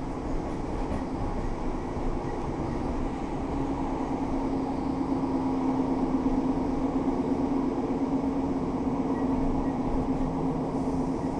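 Diesel multiple unit train heard from inside the carriage while running: a steady rumble of wheels on the track under a humming drone that grows louder for several seconds in the middle and then eases.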